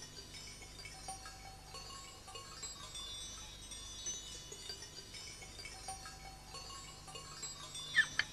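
Soft, twinkling chime tones: scattered short high ringing notes like a wind chime, quiet over a faint steady low hum, with a quick rising glide near the end.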